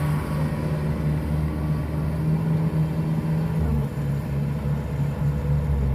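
Tracked rice combine harvester's diesel engine running steadily under load as it cuts rice, a constant low hum.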